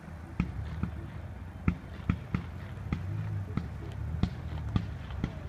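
Aerial fireworks going off in an irregular series of sharp pops and thuds, about two a second, over a steady low rumble.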